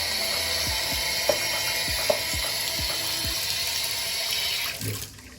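Tap water pouring steadily into a portable washing machine's tub to rinse out leftover soap suds, with a couple of small knocks; the flow stops abruptly about five seconds in.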